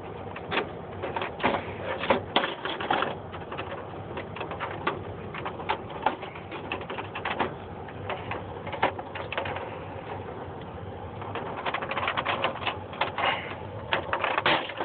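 Plastic clips of a Dell A960 printer's housing snapping and clicking as they are pried loose with a tool, with irregular clatter and handling knocks as the plastic parts are worked apart. The clicks come thicker near the end.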